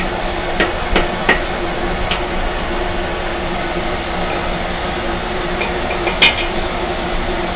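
Five sharp metal taps of a hammer on a chisel's steel ferrule, four close together in the first two seconds and one more about six seconds in, over a steady hum.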